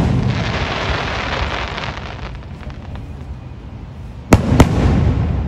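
Aerial fireworks shells bursting. The rumble and crackle of a burst fade over the first couple of seconds. Near the end come two sharp bangs about a third of a second apart, followed by more rumbling.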